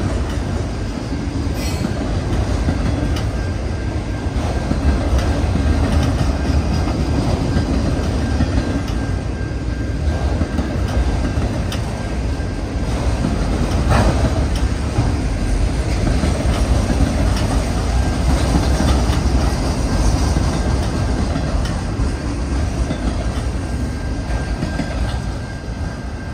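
Autorack freight cars rolling past: a steady rumble of steel wheels on rail with the clickety-clack of wheels over rail joints. A faint thin squeal from the wheels comes in during the second half.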